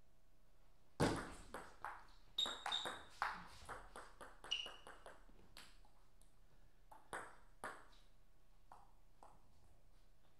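Table tennis ball being played in a rally: a quick series of sharp clicks as it strikes the paddles and the table. The loudest click comes about a second in, the clicks thin out after about five seconds, and a few lighter taps follow around seven to eight seconds.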